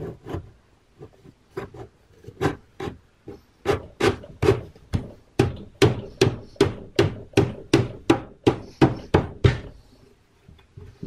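Hand knocking a plywood front baffle into a subwoofer cabinet to seat it: a run of sharp wooden knocks, about three a second, from about two seconds in until near the end, with a few lighter taps before.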